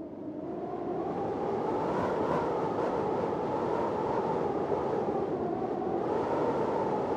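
Storm wind howling: a steady rushing with gusts that swell and rise in pitch, then fall back, about two seconds in and again near the end. It fades in over the first second.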